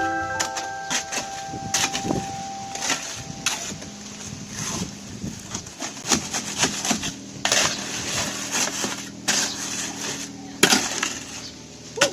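Irregular knocks and clatter of work noise, with a low steady hum from about three seconds in until near the end. Background music fades out in the first seconds.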